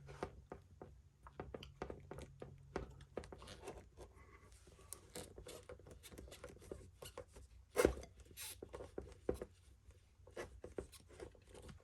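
Faint, scattered clicks and taps of hands working fuel injectors out of an LS V8's fuel rail, with one louder knock about eight seconds in.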